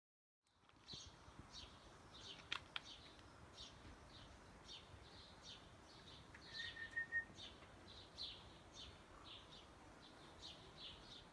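A bird chirping over and over, about two short high chirps a second. There are two sharp clicks a couple of seconds in and a brief steady whistle just past halfway.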